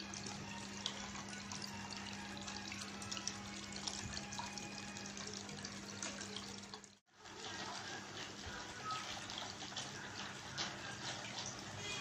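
Small tabletop cement waterfall fountain running: water trickling and splashing down its stepped cascades into the pool. A steady low hum sits under it until the sound drops out briefly about seven seconds in; after that the water continues without the hum.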